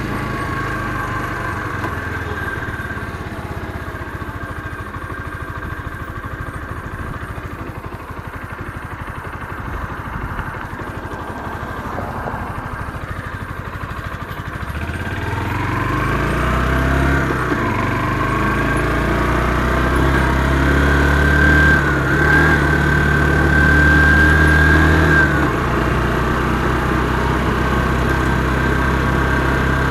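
Motorcycle engine heard from the rider's seat while riding: running at low revs through the first half, then revving up about halfway through as the bike accelerates, holding steady, and easing off near the end.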